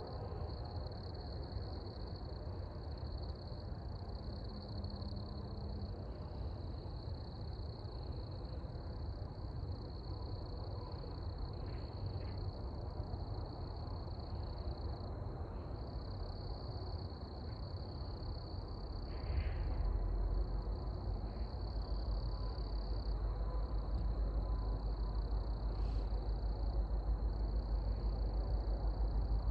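Low rumble of an approaching freight train, growing louder about two-thirds of the way through, under a steady high-pitched night chorus.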